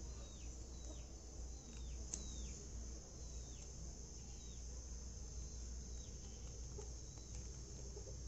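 Faint background of insects giving a steady high-pitched drone, with a bird repeating a short falling note over and over, and a low steady hum underneath.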